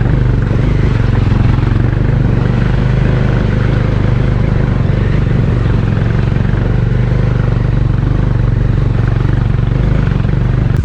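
Motorcycle engine running steadily while being ridden, its low note constant, with a rushing road and wind noise over it.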